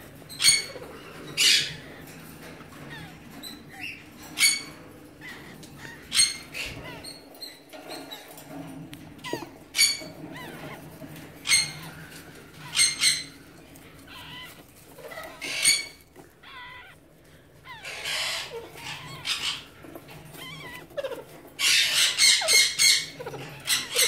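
Alexandrine parakeet giving short, sharp squawks every second or few, with a longer run of rapid squawking calls near the end.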